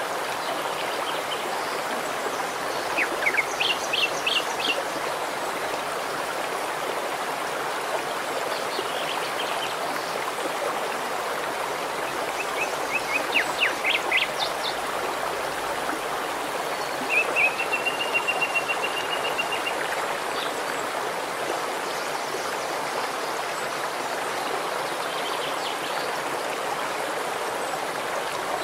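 Shallow mountain stream running steadily over stones. Songbirds chirp in short bursts several times, and one sings a steady trill for about two and a half seconds a little past the middle.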